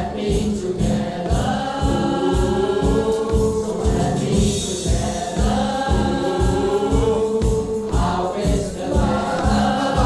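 Music: a song sung by several voices together, choir-like, over a steady driving beat.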